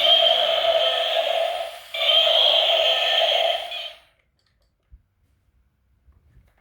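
A toy vehicle's electronic horn sounding in two long, steady blasts at one fixed pitch, about two seconds each, stopping about four seconds in.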